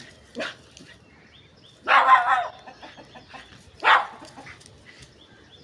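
A rooster and a small dog face off, with three short animal cries; the loudest and longest comes about two seconds in.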